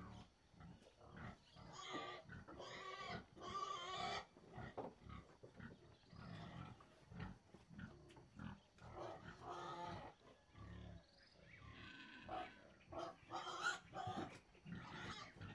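Dairy cow eating dry meal concentrate from a bowl with her muzzle in the feed, making irregular munching sounds in short bursts.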